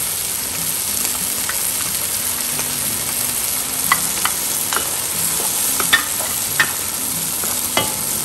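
Masala of fried onion, spices and potatoes sizzling steadily in a nonstick pot as yogurt is added. A spatula stirring it gives half a dozen sharp clicks and taps, starting about halfway through.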